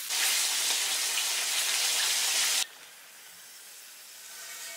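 Battered squid deep-frying in a wok of hot oil, sizzling loudly. About two and a half seconds in, the sizzle drops abruptly to a much quieter one as the fried squid hangs above the oil, dripping.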